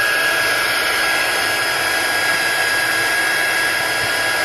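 Heat gun blowing steadily, a constant rush of air with a high whine, aimed at a phone's screen edge to soften the glue under the glass.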